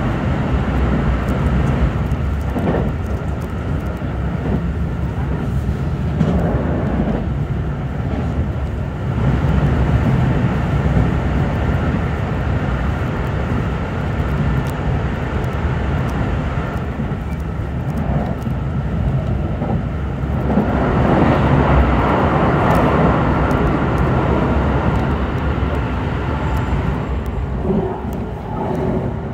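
Keikyu limited express train running at speed through a tunnel, heard from inside the car: a continuous rumble of wheels on rail with a thin steady whine over it. It swells louder at times and eases slightly as the train comes out of the tunnel near the end.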